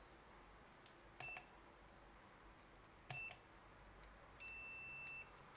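Multimeter beeper in continuity mode: two short high beeps, then a longer beep of nearly a second near the end.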